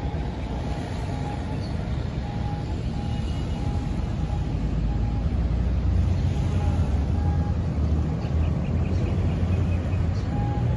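Steady rumble of road traffic, growing louder about halfway through, with faint short tones repeating above it.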